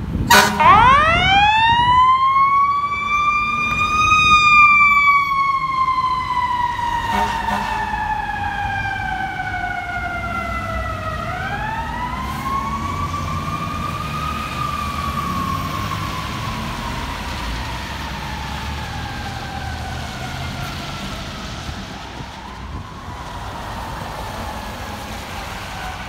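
Fire engine siren wailing: the pitch climbs steeply to a peak, then slowly falls, climbs again about eleven seconds in, and trails off. It is loudest near the start, with the truck's engine rumbling underneath.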